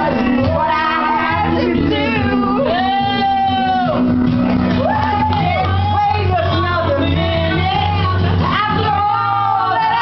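Two women singing a song loudly over music, with one long held note about three seconds in.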